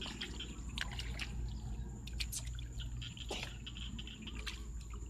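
Hands groping and sloshing in shallow muddy ditch water, with small splashes and scattered clicks of mud and grass over a steady low rumble.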